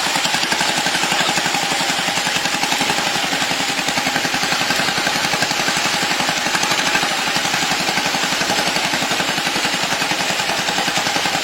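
Ploughing machine's engine running steadily under load, with a fast, even chugging beat.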